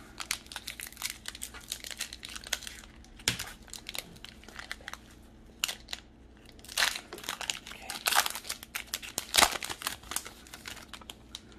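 Foil wrapper of a Pokémon trading-card booster pack crinkling in the hands and being torn open: a run of short crackles, louder from about seven seconds in.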